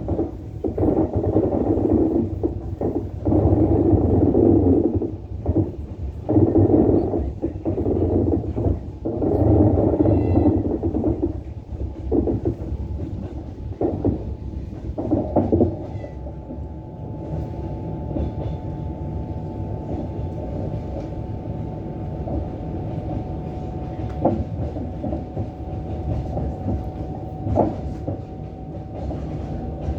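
Passenger train hauled by a DM62 diesel unit, rolling along the track. The first half is louder and uneven; in the second half the rumble settles into a steady run with a constant tone and an occasional sharp click of the wheels over rail joints.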